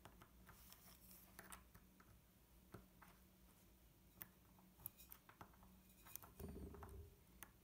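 Near silence: faint scattered ticks and scrapes of multimeter probe tips against the ABS valve coil's pins, with no continuity beep, because the tips are too blunt to make contact.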